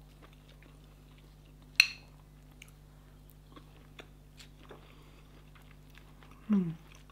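A fork clinks once, sharply, against a ceramic bowl, then a mouthful of the dish is chewed quietly, with a few small clicks. Near the end comes a short falling 'mm' of approval, over a faint steady electrical hum.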